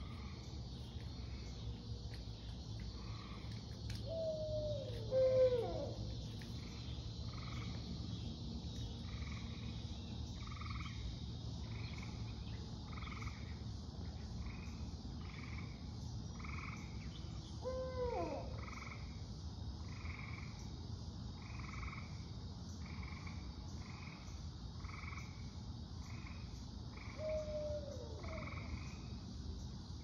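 Barred owl calling three times with hoots that slide down in pitch: the first, about five seconds in and the loudest, swoops up and then falls; another comes around eighteen seconds in, and a shorter falling hoot comes near the end. A steady repeated trill, about once a second, runs underneath.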